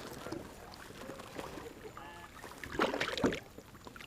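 Water sloshing and light knocks around a kayak while a small bass is reeled in, with a brief louder splash about three seconds in.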